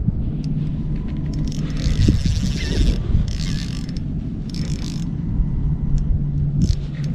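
Spinning reel being cranked against a hooked fish, with several short spells of the drag buzzing as the fish takes line, over a steady low hum.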